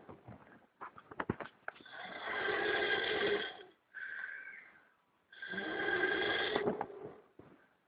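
Turtle snoring: a long, noisy snore of about two seconds, a short one after it, then another of about a second and a half. A few faint clicks come in the second before the first snore.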